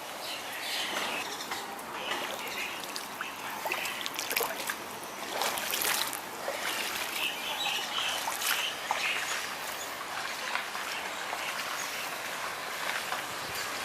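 Monsoon rainwater trickling, with scattered drips and splashes, while birds chirp now and then.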